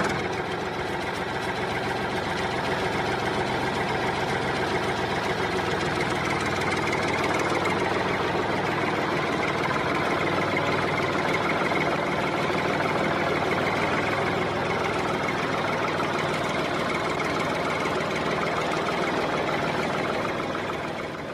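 Small electric motor of a homemade mini machine running steadily, a continuous mechanical whir that dies away at the very end.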